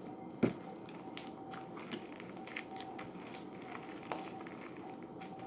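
Slime being mixed with freshly added activator: sticky squishing with small irregular crackles and clicks as it is worked. One sharp knock about half a second in.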